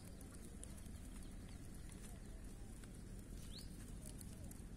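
Outdoor ambience: a low steady rumble with a few faint, short, rising bird chirps, one right at the start and one about three and a half seconds in.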